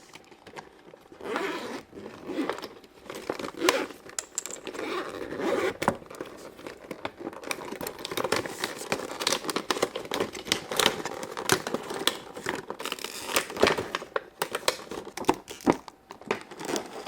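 Toy packaging being opened by hand: plastic and cardboard crinkling, rustling and tearing in irregular bursts, with many small clicks and crackles.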